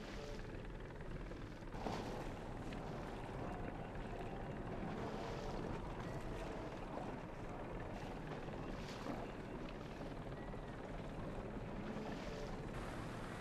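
Steady rushing noise of wind and water around racing yachts under way, with an engine's drone underneath. The sound changes abruptly about two seconds in and again near the end.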